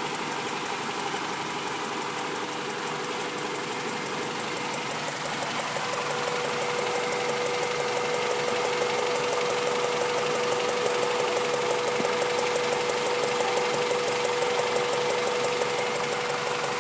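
Honda B16 four-cylinder engine idling with a rapid, even ticking, which the owner suspects is a ticking valve or a misfire. About six seconds in it grows slightly louder and a steady whine comes up.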